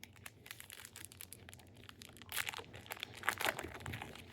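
Wrapper of a 2025 Topps Heritage baseball card pack being torn open and crinkled by hand: a run of small crackles, with louder crinkling bursts a little past halfway and again about three quarters of the way through.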